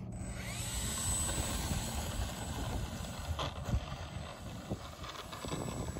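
Wind buffeting the microphone, a steady low rumble, with a couple of faint clicks about halfway through.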